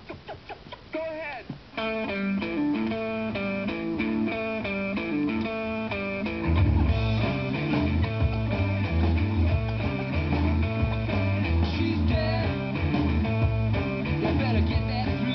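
Guitar-led rock music. A bass and drum part joins about six seconds in, after a second or two of quick pulsing chirps before the music starts.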